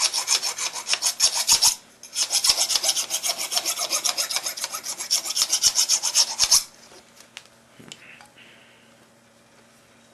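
Small metal file of a multi-tool rasped rapidly back and forth along the steel edge of a Cold Steel kukri, several strokes a second, sharpening it. The strokes break off briefly just before two seconds in, then stop about two-thirds of the way through, leaving only faint handling clicks.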